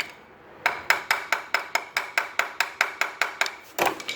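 Rapid, even tapping of a screwdriver against a motorcycle's starter motor, about six strikes a second, knocking the starter to free it when it only clicks and won't crank.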